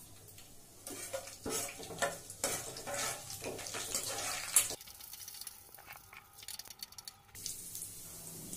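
Tempering spices (mustard seeds, split chana and urad dal, cumin and fennel) sizzling and crackling in hot oil in a metal kadai, stirred with a perforated steel skimmer that scrapes the pan. A denser run of crackles comes about five seconds in.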